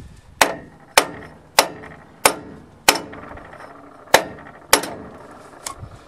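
Mini sledgehammer striking a metal driver tool to seat a Case backhoe's rear axle bearing: seven hard, ringing metal blows roughly half a second to a second apart, then one lighter hit near the end, as the bearing goes the last of the way in.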